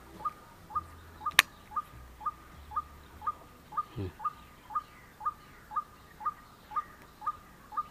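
A bird repeating one short, slightly rising call evenly about twice a second. A sharp click a little over a second in is the loudest sound, and a short low thump comes about four seconds in.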